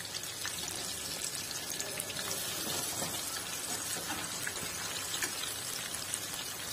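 Besan-coated chicken pieces deep-frying in mustard oil in a kadai: a steady sizzle with many small crackling pops.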